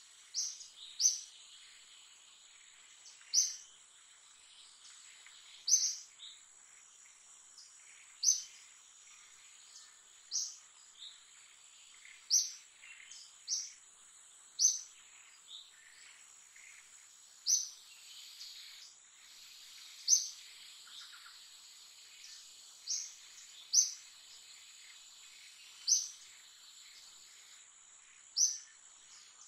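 Forest ambience: a sharp, high chirp that drops in pitch repeats about every two to three seconds over a steady, thin insect drone.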